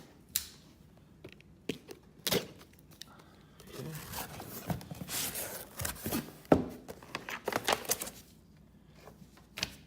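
A knife cutting open cardboard and plastic packaging, with tearing, crinkling and scattered knocks and clicks. The busiest cutting and rustling comes from about four to eight seconds in, with the sharpest knock about six and a half seconds in.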